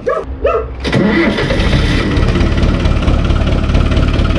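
Small tractor's diesel engine starting about a second in, then running steadily at idle.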